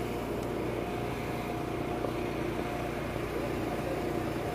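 Steady hum of distant traffic and river boat engines, with a few faint steady engine tones and no sudden sounds.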